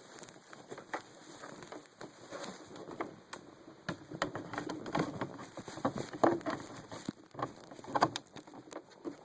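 Irregular light clicks, taps and knocks from a flat-screen TV and its plastic stand being handled as the set is seated on the stand and screws are fitted. The loudest knocks come about six and eight seconds in.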